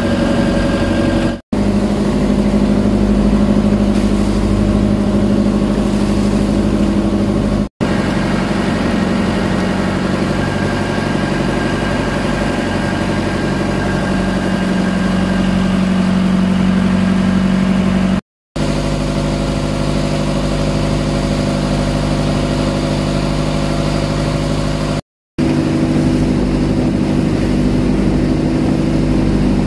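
Engine of a motorized wooden outrigger boat running steadily while the boat is underway. The sound cuts out briefly four times and the engine pitch shifts slightly after each break.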